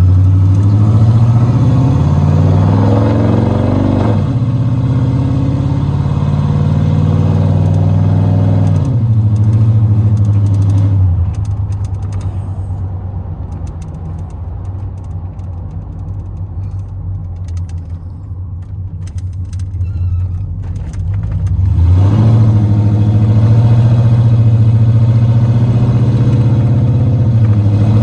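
Chevrolet Silverado's 4.8-litre V8 with long-tube headers, true dual exhaust, no catalytic converters and no mufflers, heard from inside the cab under way. The engine pitch climbs and drops suddenly about four seconds in, climbs again, then eases off and runs quieter for around ten seconds before coming back loud and steady from about twenty-two seconds in.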